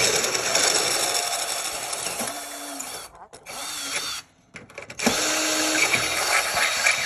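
Power drill running in three bursts as it widens a hole in a car's dash with a bigger bit: a long run, a short one about three and a half seconds in, then another long run from about five seconds.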